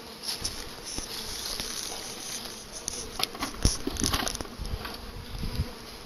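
A swarm of honey bees buzzing in flight around an open hive. A few dull knocks from wooden hive boxes being handled come through the middle, the loudest a little past halfway.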